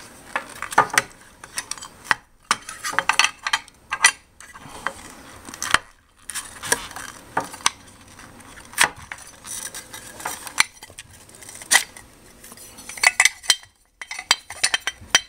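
Irregular metallic clicks, clinks and scrapes as the circuit board of a small grid-tie inverter is worked loose inside its aluminium case, which doubles as the heat sink, to slide it out.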